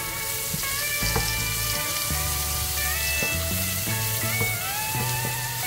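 Chopped red onion and garlic sizzling as they fry in oil in a pan, with a few scrapes of a wooden spatula stirring them, over background music.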